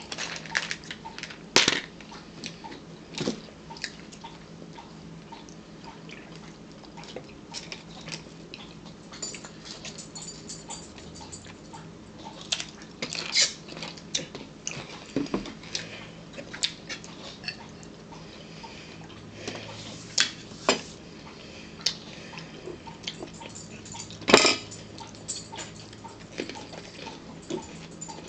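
Table eating sounds: crackers crunching and cutlery and dishes clinking in scattered short knocks, the two loudest about a second and a half in and a few seconds before the end. A pet dog whimpers now and then, begging for food, over a steady low hum.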